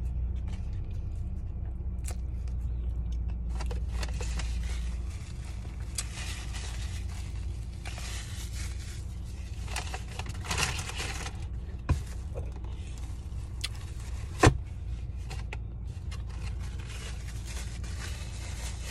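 Steady low rumble of a car cabin, with rustling and scraping handling noises for several seconds. Two sharp knocks follow, the second, about fourteen and a half seconds in, the loudest.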